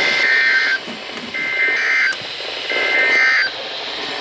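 Three short bursts of EAS SAME digital data tones, a two-tone warbling buzz, over weather radio static.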